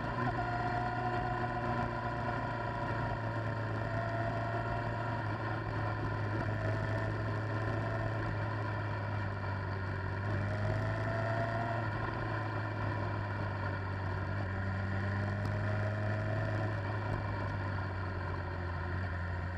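Motorcycle engine running at low, steady revs while riding, with a few brief rises in pitch, over a steady rush of wind and road noise.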